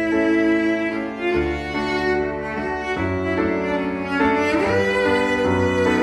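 Slow instrumental background music with long held notes over a low line that changes every second or so, and a short upward slide in pitch about four and a half seconds in.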